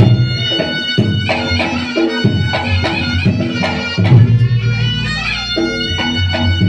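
Reog Ponorogo ensemble music: a shrill double-reed slompret (shawm) plays a wavering melody over drums and struck gong percussion.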